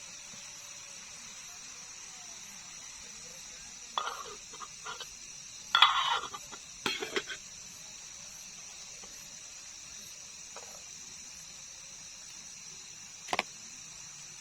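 Steady high-pitched chirring of night insects, with short clinks and clatters of cooking utensils and a pot about four, six and seven seconds in, and one sharp clink near the end.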